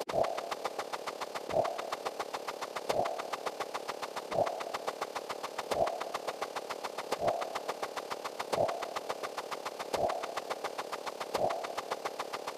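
A steady mechanical rhythm: rapid even ticking, about seven a second, with a heavier thump about every second and a half, like an idling engine.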